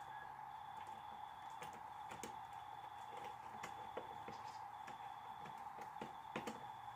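Faint, irregular small clicks and ticks of a screwdriver and wire being worked into circuit-breaker terminals while a wire bridge is fitted across the actives, over a steady hum.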